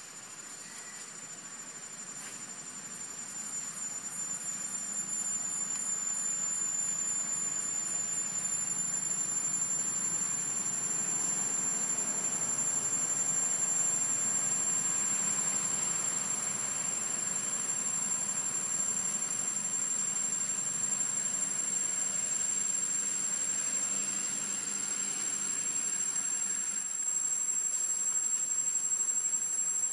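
Cicadas droning in a steady, high-pitched chorus that swells over the first several seconds and then holds.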